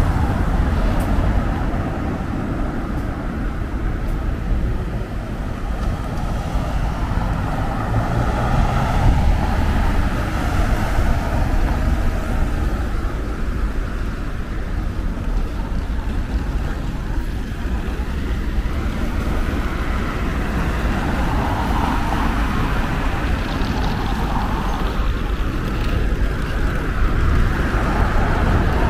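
Road traffic at an intersection: cars passing with engine and tyre noise over a steady low rumble, one going by at the start and another near the end.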